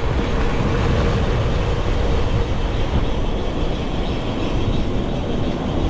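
Steady wind and road rush on a bike-mounted camera microphone while riding, with a heavy low rumble. A faint steady hum runs through the first half, then fades.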